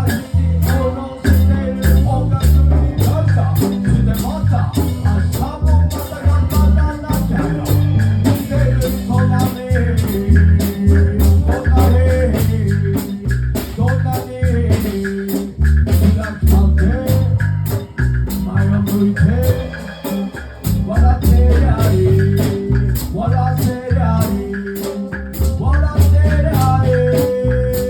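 Live band playing a song with a sung lead vocal over bass, guitar and drums, with a steady beat and a heavy bass line.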